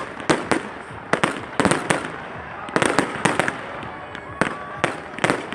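Fireworks display: shells bursting with sharp bangs in quick, irregular succession, about three a second.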